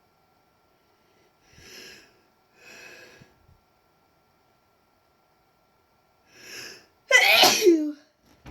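A woman's deliberately induced sneeze near the end: a loud burst with a voiced cry that falls in pitch. Three short breathy intakes come before it, two close together early on and one just before the sneeze.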